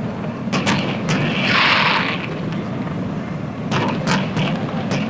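Fireworks going off: several sharp bangs in two clusters, with a dense hissing crackle in between about a second and a half in, over a steady low rumble.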